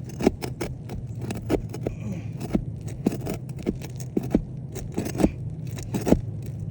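Irregular sharp metallic clicks and scrapes of a hand tool working at roofing nails under brittle asphalt shingles, over a steady low rumble.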